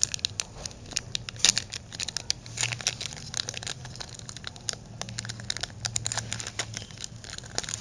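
Foil wrapper of a Pokémon trading-card booster pack crinkling and tearing as it is opened by hand: an irregular run of sharp crackles, over a faint steady low hum.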